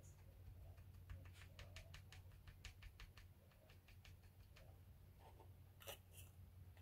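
Near silence: a low steady room hum, with a quick run of faint light clicks, about five a second, from about a second in, and two sharper clicks near the end.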